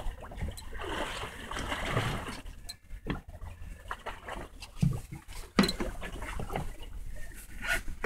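Sea water sloshing and slapping against the side of a small fishing boat's hull, over a steady low wind rumble on the microphone, with a few sharp knocks, the loudest about halfway through.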